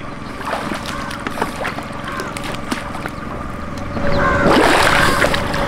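Water sloshing and splashing as a person moves in shallow water, with a louder spell of splashing about four seconds in. A faint steady hum runs underneath.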